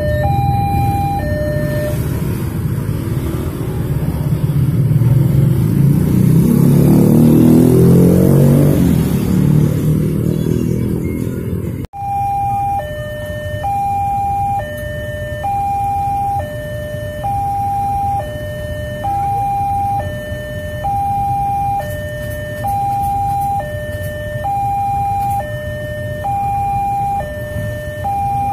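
Railway level-crossing alarm sounding an alternating high-low electronic tone, one high-low pair about every two seconds. A few seconds in, the rumble and rhythmic wheel clatter of a passing train rise over it, peak and fade. After a brief dropout about twelve seconds in, the alarm is heard alone.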